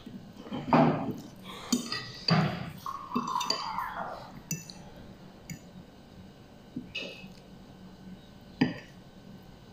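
Fork clinking and scraping on a plate of instant noodles: several sharp clinks spread out, with quieter stretches between.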